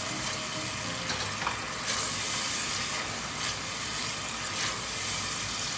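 Onions and ground spices sizzling in oil in an enamelled cast-iron pot as the masala is fried down, with a steady hiss. A wooden spatula stirs and scrapes through it a few times.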